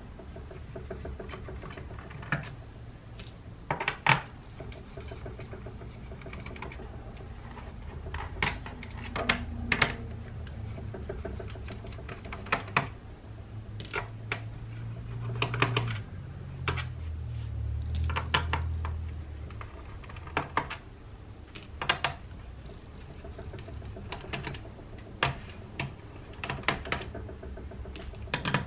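Irregular small clicks and taps of a screwdriver working screws out of a laptop's plastic bottom case, with the loose screws clicking as they are handled and set down. A low hum rises for a few seconds midway.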